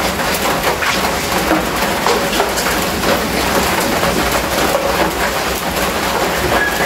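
Steady rain falling on a corrugated metal roof: an even hiss full of fine patter.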